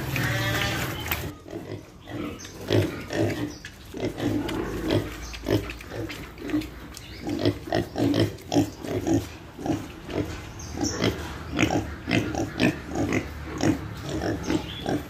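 Piglets grunting over and over, short grunts coming two or three times a second.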